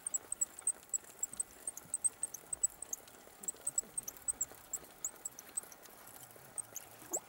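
Quiet outdoor pond ambience with short, high-pitched chirps repeating irregularly, a few each second.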